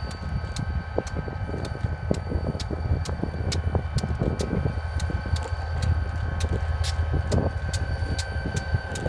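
Wind buffeting the microphone in uneven gusts over a steady low rumble, with a faint steady high whine.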